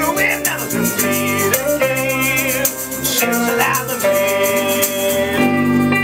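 Band music played live: guitar and other pitched instruments over a fast, steady rattling percussion rhythm.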